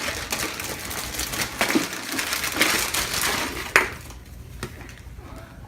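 Shaving cream spraying from a nearly empty aerosol can, sputtering and crackling rather than hissing evenly, then stopping with a sharp click about four seconds in.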